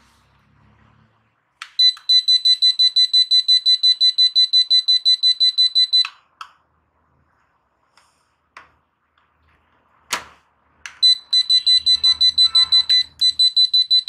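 Receiver unit of a FORBIX SEMICON wireless call bell beeping rapidly in a high-pitched tone, about five beeps a second, to signal a call pressed on a remote. The beeping stops about six seconds in, then there are a few clicks and a knock from the plastic remotes being handled, and the beeping starts again about eleven seconds in.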